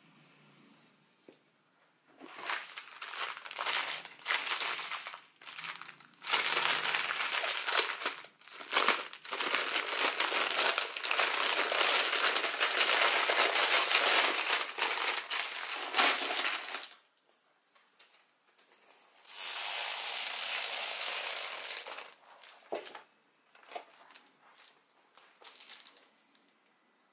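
Clear plastic bag of small diamond-painting drill packets crinkling and rustling as it is handled, in long stretches with short breaks. A steadier rustle lasts about three seconds, followed by a few light clicks near the end.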